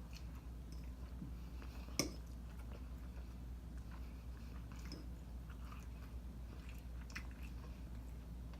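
Close-up chewing of a mouthful of breaded orange chicken and rice, with small wet mouth clicks throughout, over a steady low hum. One sharp click stands out about two seconds in.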